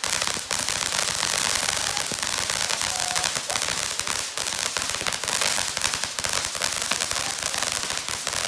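Ground fountain firework spraying sparks: a steady hiss with rapid crackling.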